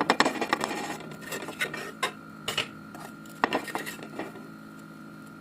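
Kitchen utensils clinking and scraping against dishes: a quick flurry of clatter at the start, then scattered single clinks and short clusters, dying away about four seconds in.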